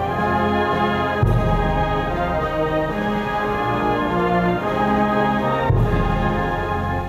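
Military band playing a national anthem: held brass chords with timpani underneath.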